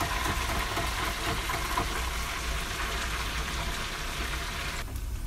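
Plantain pieces sizzling in the hot oil of an electric deep fryer: a steady hiss that drops away suddenly near the end.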